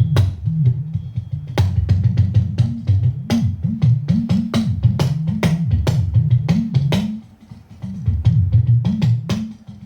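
Talking drum played in quick strokes, its low pitch bending up and down from stroke to stroke. There is a short lull about seven seconds in.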